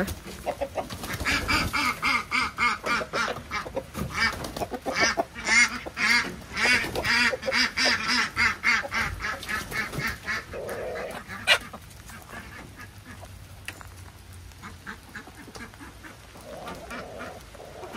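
A flock of chickens clucking and squawking, many short wavering calls overlapping for about the first ten seconds, then only a few scattered calls.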